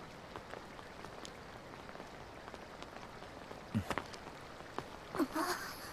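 Faint steady background hiss with scattered soft crackles and ticks, a brief low thud about four seconds in, and a short sound just after five seconds.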